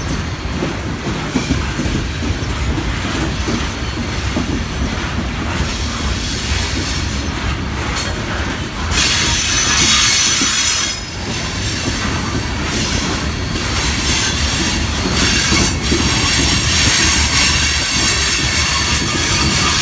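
Loaded coal hopper cars rolling through a curve, their steel wheels squealing against the rails over a steady low rumble. The squeal swells louder about nine seconds in and again near the end.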